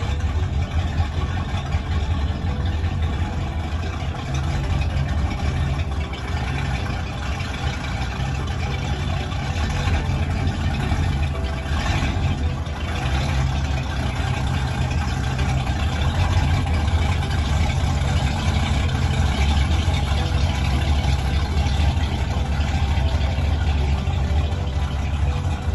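Inboard engine of a classic wooden runabout running steadily at low speed as the boat moves off through the harbour: a continuous low engine drone.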